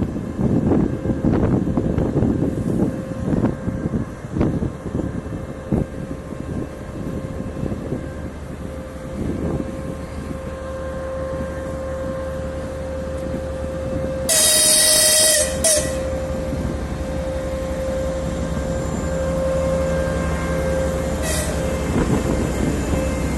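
Passenger train hauled by a pair of TEP70BS diesel locomotives, with rumble and clatter at first and then the diesels running with a steady whine. A loud horn blast sounds about two-thirds of the way in for a second and a half, and a short toot near the end.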